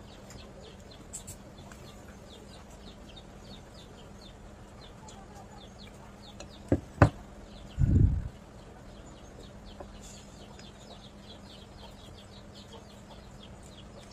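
Birds chirping in the background, short high chirps about three a second over a steady low hum. About seven seconds in come two sharp clicks and then a short low thump, the loudest sounds.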